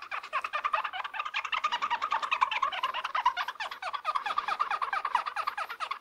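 Fingers rubbing briskly back and forth over teeth: a fast, unbroken run of short rubbing strokes, each dropping slightly in pitch.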